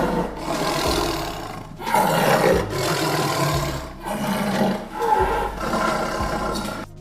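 A big cat, lion or tiger, roaring: four long, loud roars in a row, each lasting one to two seconds, with short breaks between them.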